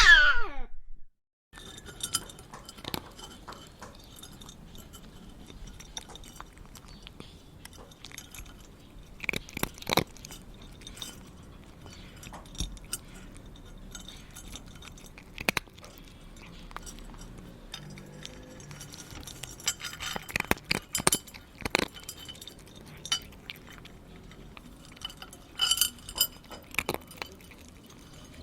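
A cat's meow ends about a second in. Then comes a cat eating dry food from a bowl: scattered crunches and clinks of kibble against the dish, with clusters of clinks near the middle and toward the end.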